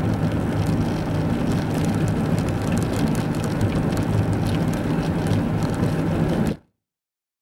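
Steady car cabin drone of engine and tyres on a snowy road at low speed, with scattered light ticks. The sound cuts off abruptly to dead silence about six and a half seconds in.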